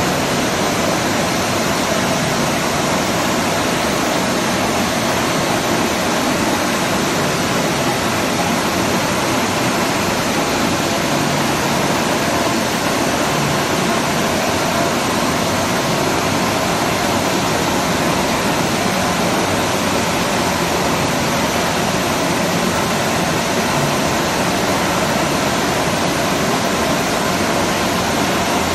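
Large bed-type milling machine running, a steady, even rushing noise with no change in level.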